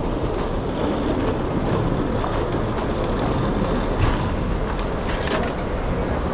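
Metal airport luggage trolley rolling over paving stones: its wheels rumble steadily and the wire basket rattles and clicks, with a louder knock about four seconds in.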